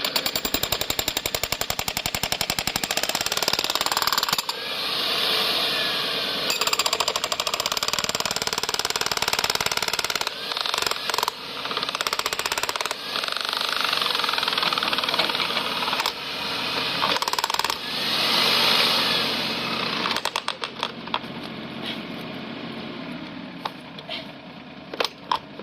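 Demolition hammer pounding with rapid, even blows in long runs with short breaks, chipping away bit by bit from the edges. It stops about twenty seconds in, leaving a few scattered knocks.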